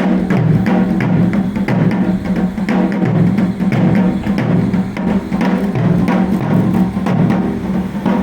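Japanese taiko drums playing a rapid, steady rhythm of strokes.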